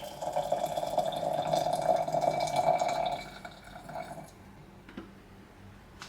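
Water running from a tap, which tails off and stops about four seconds in, followed by a single light knock.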